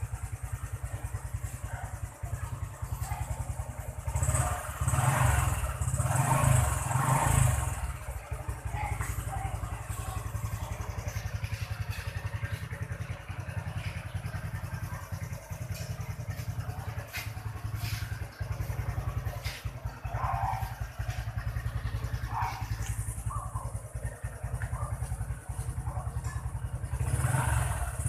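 Aprilia RS125's single-cylinder two-stroke engine idling on its stock exhaust, with the throttle blipped several times about four to eight seconds in and again near the end.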